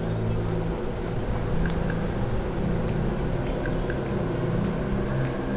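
Steady low mechanical drone made of several held low pitches, with a few faint ticks now and then.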